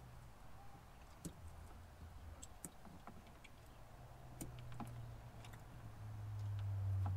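Faint, scattered small clicks and ticks of multimeter test leads being handled against an amplifier's terminals, over a low steady hum that grows louder near the end.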